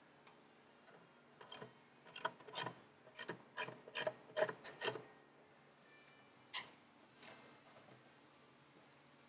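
A springer front end's steering stem being worked up into a motorcycle's steering neck: a quick run of about ten short scrapes and knocks, then two more a second or two later.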